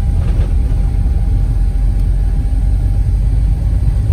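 Van driving on a snow-covered road, heard from inside the cab: a steady low engine and road rumble, with a faint steady tone above it.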